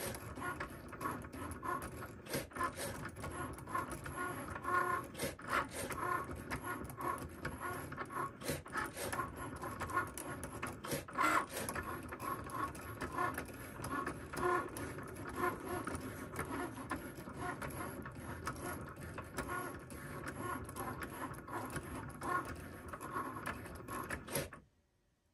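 Cricut Maker cutting machine doing a test cut on cardstock: its motors run steadily with frequent irregular ticks as the blade carriage moves over the mat. The sound stops suddenly about a second before the end.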